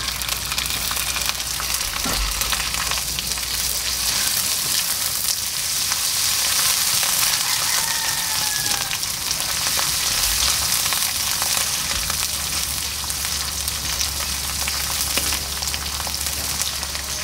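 Sambal tumis chili paste sizzling steadily as it fries in oil in a wok, with a thick crackle of spattering, while a spatula stirs it through the pan.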